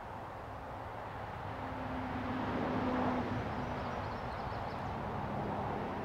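Texas State Railroad steam locomotive No. 400 working in the distance as it approaches. A steady rushing sound swells to its loudest about halfway through, with a low held tone for a couple of seconds in the middle.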